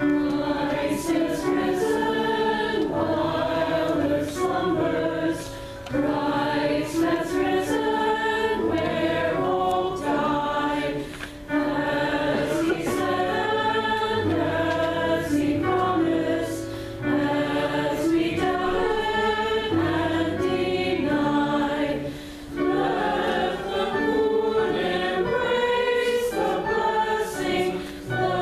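A congregation singing a hymn together with piano accompaniment, in phrases broken by short pauses about every five or six seconds.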